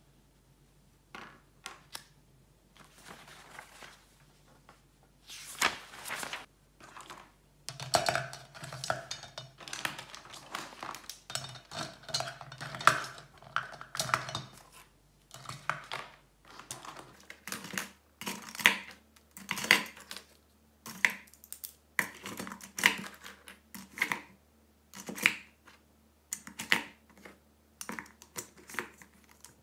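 Irregular clinking and clattering of small hard objects being handled, dozens of sharp knocks and clicks over half a minute. A faint low background hum shifts about halfway through.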